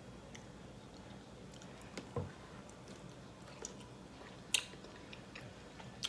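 Close-up chewing and biting into a smoked turkey leg with crisp skin: scattered small wet clicks and crackles, with a sharper click about four and a half seconds in.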